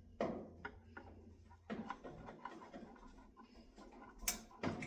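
A Phillips screwdriver backing small screws out of an oven's sheet-metal back panel: faint scraping, with a few sharp clicks and knocks, the loudest just after the start and near the end.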